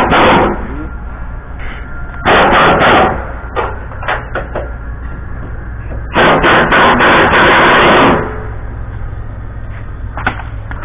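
Impact wrench with a shallow socket hammering in three bursts, undoing the bumper bolts under the truck's front end: a short burst at the start, another of about a second, and a longer one of about two seconds near the end, with a few short clicks between them.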